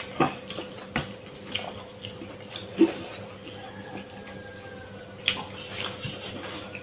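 Eating sounds of people eating Manipuri food by hand: wet chewing, lip smacks and mouth clicks, with a few light taps of fingers against plates. Short scattered smacks, the loudest about three seconds in and again near five seconds.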